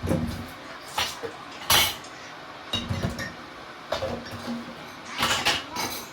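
Dishes and cutlery clinking and clattering, as when being washed and stacked: separate knocks about once a second, the loudest near the two-second mark and a cluster just after five seconds.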